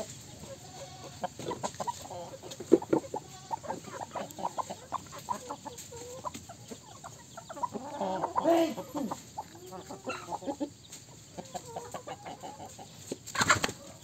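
Chickens clucking in short calls as they feed, over many small ticks of beaks pecking at the ground, with a louder run of clucks about two-thirds of the way through. A brief loud burst of noise comes near the end.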